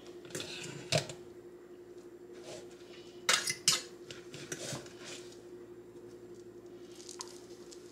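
Scattered metal clinks as drained pasta is tossed in a stainless steel colander in a steel sink, the loudest two close together a little past three seconds in. A faint steady hum runs underneath.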